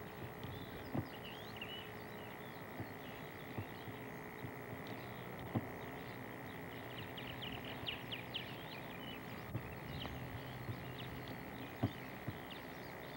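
Birds chirping in a quick, scattered chatter over a steady faint high tone, with a few light knocks from handling the camcorder.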